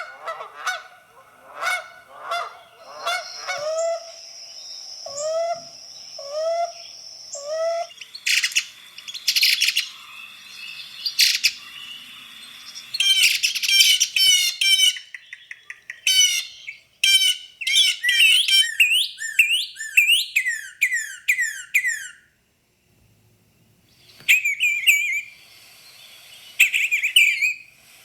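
Recorded bird calls of several species, one after another: evenly repeated honking calls at first, then chirps and rapid trilled song, a brief silent break a little after twenty seconds, and more chirping calls near the end.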